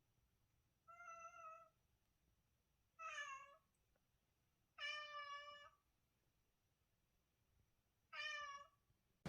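A domestic cat meowing four times, each call well apart from the next, the third the longest.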